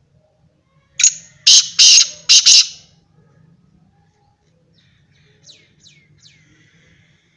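Black francolin calling: a loud, harsh phrase of about five rapid, scratchy notes lasting under two seconds, starting about a second in. A few faint, quick falling chirps follow about two seconds later.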